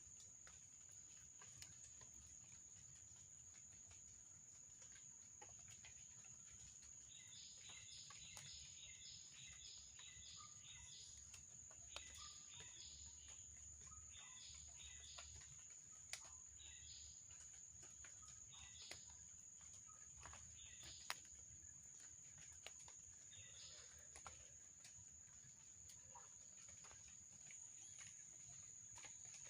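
Quiet night ambience: a steady high-pitched whine, with bursts of rapid chirping calls from an animal from about 7 s to 25 s in, and a few faint clicks.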